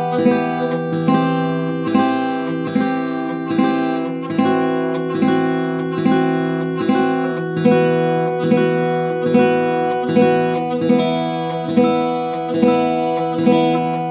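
Acoustic guitar music: chords strummed in a steady, even rhythm, about five strums every four seconds.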